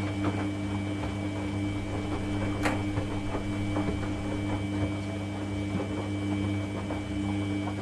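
Washing machine running its wash cycle: a steady motor hum with a faint high whine, light rattling ticks throughout, and one sharp click about two and a half seconds in.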